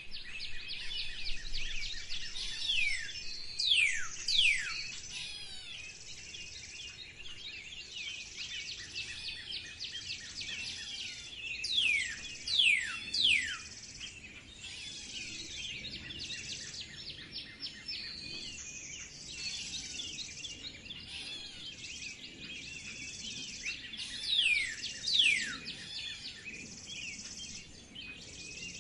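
A dawn-chorus-like mix of many songbirds chirping and singing, with one bird repeatedly giving a loud series of three sharply descending whistles, about every ten seconds.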